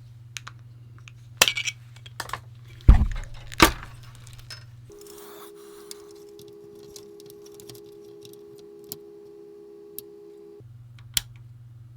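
Freshly repaired Commodore VIC-20 power switch being tested: several sharp clicks, then two heavier knocks about three seconds in. A steady low tone follows for about six seconds and cuts off suddenly, with a few single clicks after it. The switch now moves freely after having been jammed solid in the off position.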